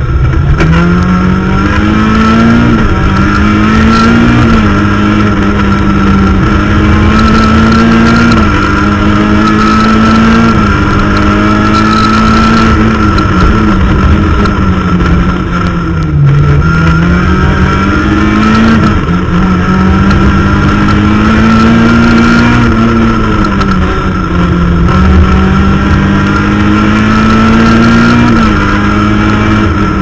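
Rally car engine run hard on a special stage, heard from inside the cabin: its pitch climbs through each gear and drops back at the shifts and lifts, with a deeper dip and climb about halfway through.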